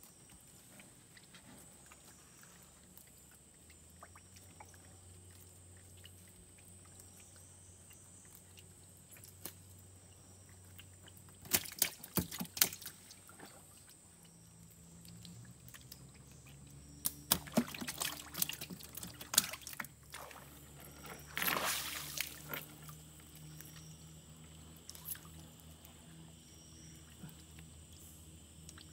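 Water splashing and dripping as a gill net is pulled up over the side of a wooden boat, in three short spells about 12, 18 and 22 seconds in. A faint steady high tone and a low hum run underneath.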